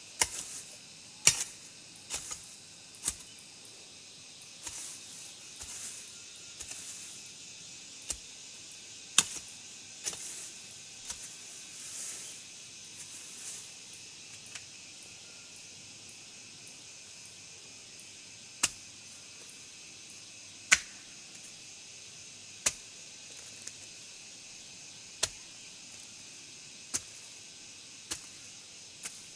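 Machete chopping through brush and undergrowth: sharp strikes with rustling of cut vegetation, frequent in the first half, then single strikes every couple of seconds. A steady insect drone runs underneath.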